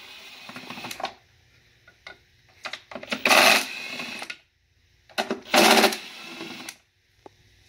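Small handheld power tool run in two bursts of about a second each, about three and five seconds in, with a few sharp clicks between.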